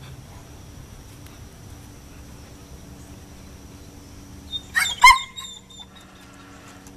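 A dog giving a quick cluster of short, high yelps about four and a half seconds in, loud against an otherwise quiet background.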